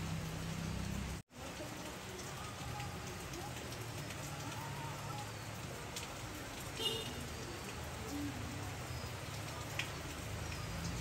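Steady rain falling and splashing on a wet, puddled surface, with the sound cutting out for an instant about a second in and a few small clicks of single drops.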